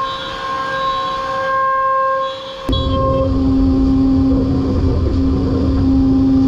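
Holz-Her Pro-Master 7125 five-axis CNC machining centre running: a steady whine of several pitches, then a sudden change about two and a half seconds in to a louder, closer sound of the spindle head with a lower steady hum over a heavy rumble.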